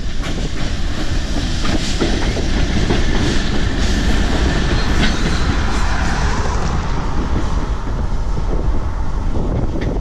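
ALCO RS-32 diesel locomotive, with its V12 engine running, passes close by, followed by a covered hopper car. The steady rumble of the train carries a few wheel clicks over the rail joints.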